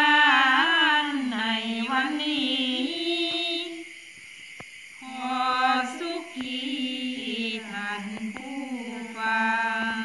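Thai Buddhist sarabhanya chant sung melodically in a single voice line, in two long phrases with a short pause between them.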